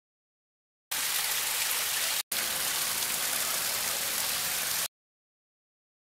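Water of a small waterfall cascading over rocks: a steady rushing, splashing hiss. It starts suddenly about a second in, breaks off for an instant a little after two seconds, and cuts off suddenly shortly before the end.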